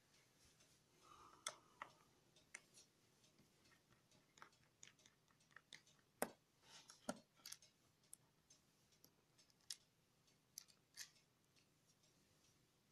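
Faint, irregular clicks and ticks of a small screwdriver working the bottom-cover screws of an Asus Vivobook F510UA laptop, the tip and screws knocking against the case; the clicks come thickest about halfway through.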